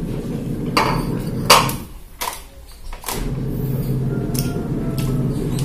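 Two sharp clinks of cutlery against a plate, about a second in and again half a second later, over a steady low hum that drops out for about a second near the middle.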